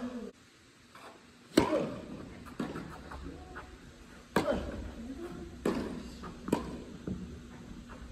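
Tennis ball struck by racquets and bouncing in a doubles rally: about six sharp hits, one to two seconds apart, each echoing in a large indoor tennis hall.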